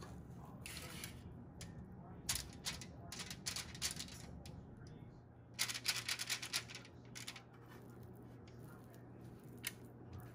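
Silicone spatula scraping and tapping on a foil-lined baking pan, with the foil crinkling, as thick chocolate batter is dropped in and spread. Short clusters of crisp scrapes and clicks come about two to four seconds in and again about six seconds in, with a single click near the end.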